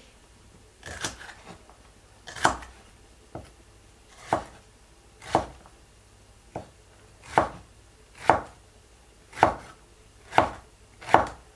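Kitchen knife slicing a celery stalk on a wooden cutting board: about eleven separate cuts at a slow, even pace, roughly one a second, each ending in a knock of the blade on the board.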